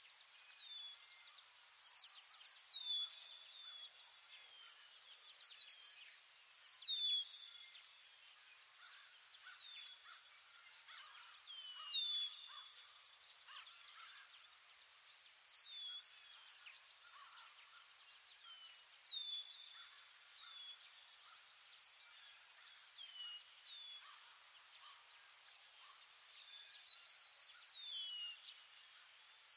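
Ambient forest soundscape: a steady, rapid pulsing insect trill with short, high, downward-sliding bird whistles repeating every second or two, often in pairs.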